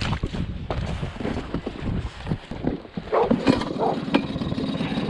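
Boots splashing through shallow water as the inflatable is pushed off, then a Mercury 3.3 hp two-stroke outboard starts about three seconds in and runs at a steady idle.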